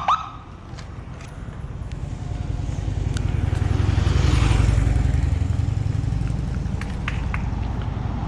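A brief sharp rising squeak right at the start, then a road vehicle passing by: a low rumble that builds to a peak about halfway through and fades again, with a few scattered clicks.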